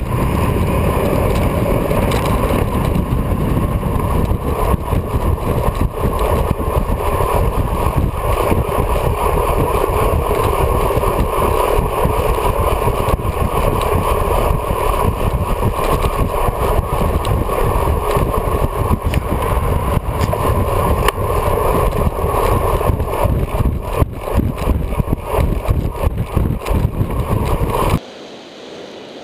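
Loud, steady wind rush and road noise on a bike-mounted camera's microphone from a road bike descending at high speed, around 60 to 90 km/h. Near the end it cuts off suddenly to a much quieter hiss.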